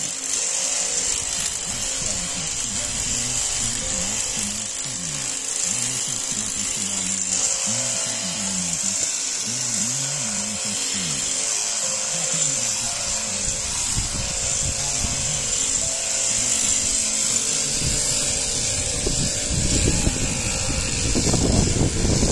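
Machine sheep-shearing handpiece, driven through a jointed overhead drive arm, running steadily as it cuts the fleece off a sheep, with a high, even buzz. A low rumble joins in near the end.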